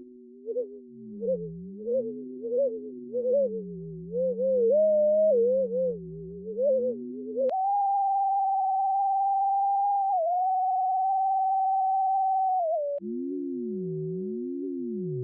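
Computer-generated sine-like tones sonifying orbital parametric curves. Two tones waver together, the upper one blipping up in pitch about every half second; about 7.5 seconds in they switch to a single steady high tone, and near the end to a low tone with another tone swooping down and back up every second and a half or so.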